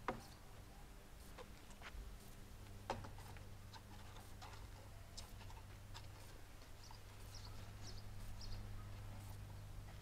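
Quiet yard ambience: a steady low hum with a few sharp clicks and knocks, and small high bird chirps near the end.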